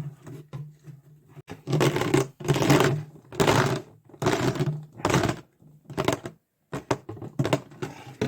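Plastic bottle being squeezed and crinkled by hand in a run of short crackling crunches, about one or two a second.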